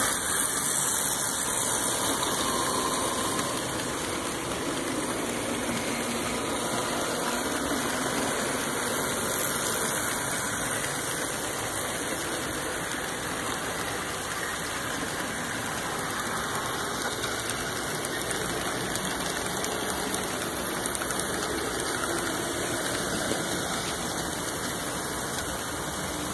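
HO scale model trains running close by, a steady whirring rumble of small motors and metal wheels on the rails, a little louder in the first couple of seconds as the locomotives pass. A single short click about twelve seconds in.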